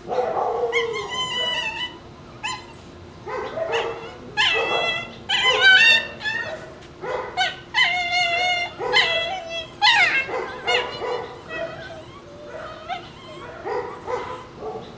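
Shiba Inu puppies screaming and yipping as they play-fight over a bone: a run of shrill, wavering, fox-like cries, loudest near the middle, giving way to fainter, lower calls near the end.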